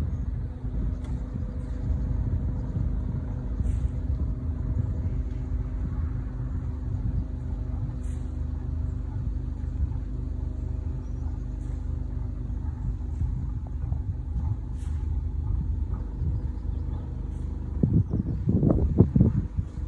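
A motor cruiser's engine running steadily under way, a low rumble with a faint steady hum. Near the end there is a brief, louder, rougher burst of low rumbling.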